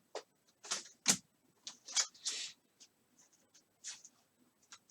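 Trading cards being flipped and slid against one another in the hands: a run of short, papery swishes and flicks, some louder than others.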